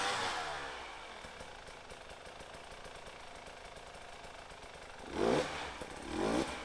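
Dirt bike engine given short bursts of throttle while picking its way over rocks: a rev dying away in the first second, low running in between, then two sharp revs rising in pitch near the end.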